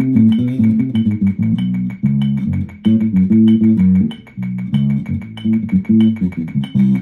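Electric bass guitar played fingerstyle, a busy run of plucked notes with a brief break about four seconds in. A faint steady tick keeps time behind it, about every 0.6 seconds.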